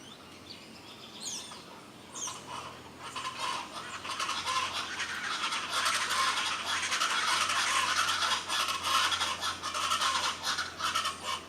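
Birds chirping, then a loud, dense, scratchy chattering from about three seconds in that stops just before the end.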